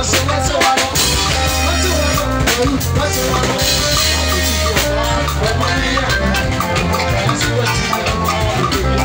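Loud live band dance music played through large loudspeakers: a drum kit keeping a steady beat over a repeating bass line, with keyboard.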